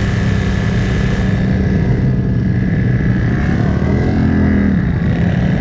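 Off-road vehicle engine running steadily, with a brief rise in revs about four seconds in, over a rushing hiss that fades after the first second or so.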